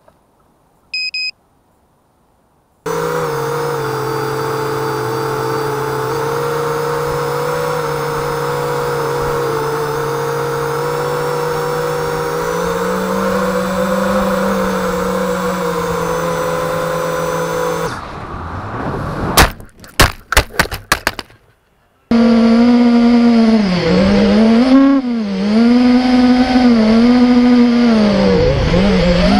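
A brief electronic beep about a second in. Then an FPV quadcopter's motors and propellers whine steadily for about fifteen seconds. After a few sharp knocks and cut-outs, the motor whine returns, its pitch dipping and rising with the throttle.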